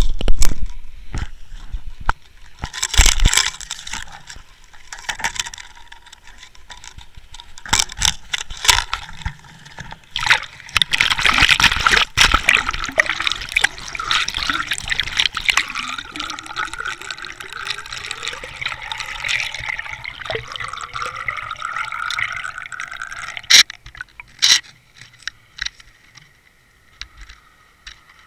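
Knocks and rubbing as a Water Wolf fishing-line camera is handled, then water splashing and gurgling past it as it goes in and is towed underwater, with a faint tone slowly rising in pitch through the middle. Near the end it turns much quieter, with a few scattered clicks.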